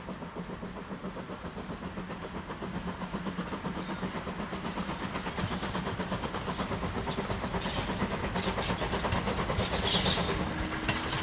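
LMS Ivatt Class 2MT tank locomotive No. 41312 approaching with its train, still out of sight: a fast, even rhythmic beat that grows steadily louder.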